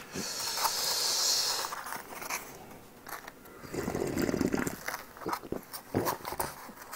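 Close-up eating sounds: a breathy hiss in the first second and a half, then sipping from a bowl of gamjatang broth about four seconds in, and chewing with small clicks.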